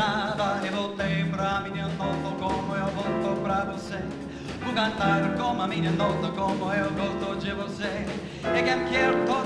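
A vocalist singing a song with a small jazz band of piano, upright bass and drums.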